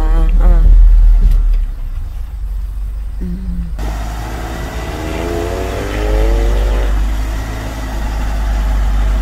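Camper van driving, heard from inside the cab: a steady low engine and road rumble. About four seconds in, a louder even road hiss takes over, and the engine note rises for a couple of seconds as the van accelerates.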